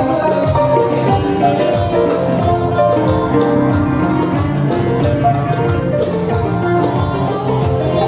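Royalty-free instrumental music dubbed over the footage: a quick run of short melody notes over a steady bass line, at an even loudness.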